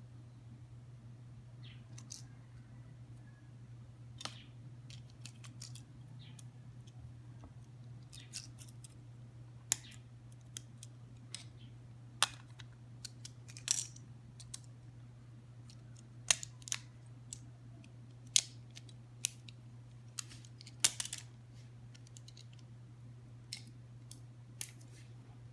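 Packaging being handled and opened by hand: scattered sharp clicks and taps at irregular intervals, over a steady low hum.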